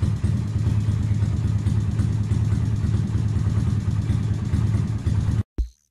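Honda Karisma 125's single-cylinder four-stroke engine running steadily at idle, freshly started on its repaired electric starter. The engine cuts off abruptly about five and a half seconds in, and a drum-machine beat begins.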